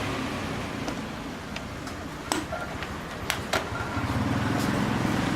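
Road traffic rumbling, with a motor vehicle growing louder over the last second or so. A few sharp clicks sound around the middle.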